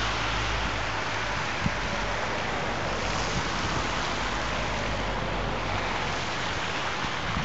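Wind: a steady, even hiss with some low rumble of wind on the microphone.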